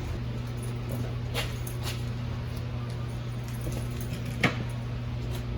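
A few sharp clicks and knocks from tools and parts being handled while a wheel is being taken off, the loudest about four and a half seconds in, over a steady low hum.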